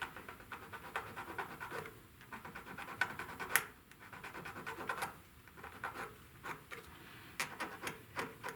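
Small file rasping back and forth over a soldered battery-lead joint in quick, short scraping strokes, filing off solder spikes so heat shrink will sit smoothly, with a few sharper clicks.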